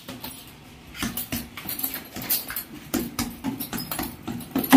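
Dogs barking in short repeated barks, about two or three a second, the loudest near the end.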